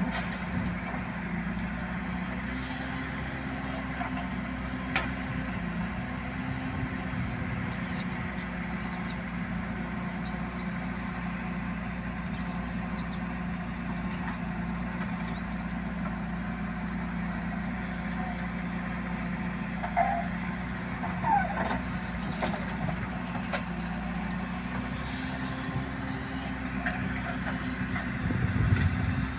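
JCB 3DX backhoe loader's diesel engine running steadily, with a few short knocks and a brief louder swell near the end.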